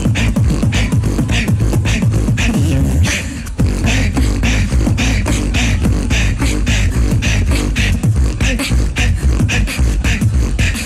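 Two beatboxers performing a tag-team routine into microphones, amplified through the PA. It is a fast, steady beat of deep bass and sharp snare-like hits that drops out briefly about three and a half seconds in.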